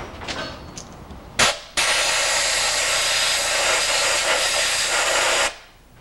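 Pressurised spray hissing onto the freshly tapped spark-plug threads of a Shovelhead cylinder head, cleaning the cutting oil off them so the Loctite will hold. A short burst comes about a second and a half in, then a steady hiss of nearly four seconds that cuts off suddenly.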